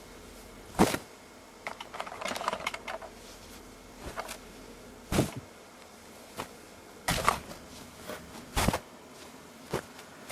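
Long hair swung down against the back of a chair: a series of short, sharp swishing hits every second or two, with a longer rustling stretch about two seconds in.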